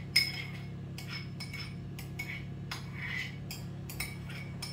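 A metal spoon clinking and scraping against a cup and a glass bowl as requeijão is spooned onto shredded chicken. One sharp clink comes just after the start, then several lighter ringing taps and a short scrape.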